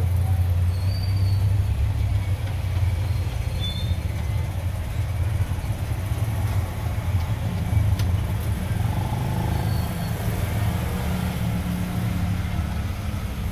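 Steady low rumble, much like an engine or vehicle running in the background, with a few faint clicks.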